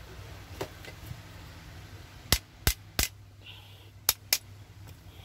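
Sharp metallic clacks of a fan motor's metal end housing and rotor being fitted together by hand to check the fit: three in quick succession a little over two seconds in, then two more about a second later.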